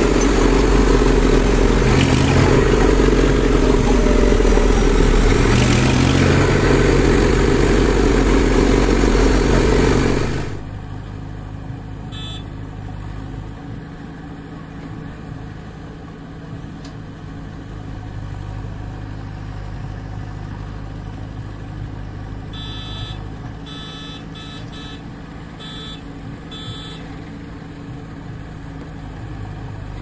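A tractor's diesel engine running loud at road speed, heard from the driver's seat. After about ten seconds it gives way to quieter, steady diesel engines running at the sand pit, the JCB 3DX backhoe loader and waiting tractors, with a few brief sharp sounds near the end.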